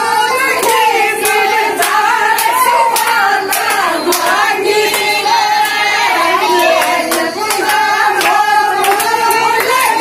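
A group of women singing a Rajasthani folk song together, with hand claps in a steady beat, about one and a half per second.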